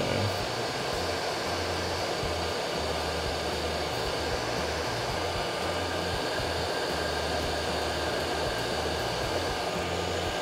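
Heat gun running steadily, a continuous rush of blown air with a faint motor whine, as it shrinks heat-shrink tubing over soldered headphone-cable joints.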